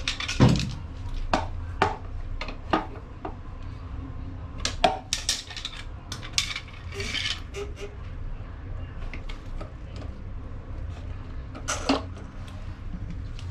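Scattered metallic clinks and knocks from handling a hand-operated pipe pressure-test pump and its metal valves, the loudest about half a second in and another near the end.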